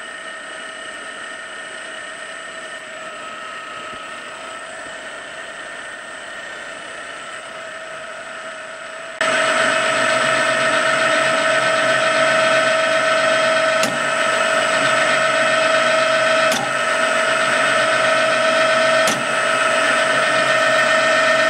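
Cormak XZ6350ZB milling machine's spindle running with a steady whine while a twist drill bores into a steel plate under the power quill feed. The sound gets suddenly louder about nine seconds in, and three faint ticks come a couple of seconds apart near the end.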